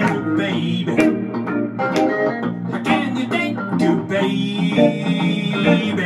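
Chicago blues played live on two guitars, plucked notes over a steady strummed rhythm, with some bent notes.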